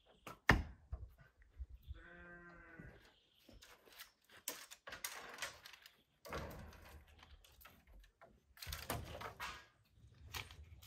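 Dry branches and brushwood being handled: a sharp wooden knock early, then rustling and scraping in several bursts. About two seconds in, a single bleat lasting about a second.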